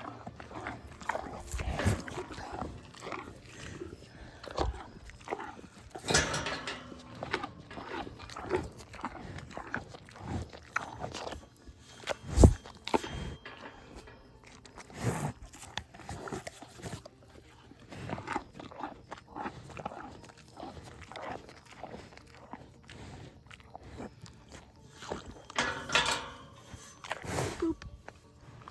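Farm animals at snack time, with a dog prominent: irregular crunching, chewing and scattered knocks throughout, a sharp loud knock near the middle, and a few short animal calls.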